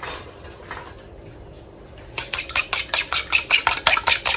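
Fork beating an egg wash of egg and milk in a small plastic bowl. The fork ticks rapidly against the bowl, about seven strokes a second, starting about halfway in.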